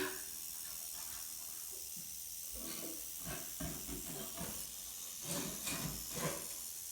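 Rattlesnake rattling its tail: a steady, high-pitched hissing buzz.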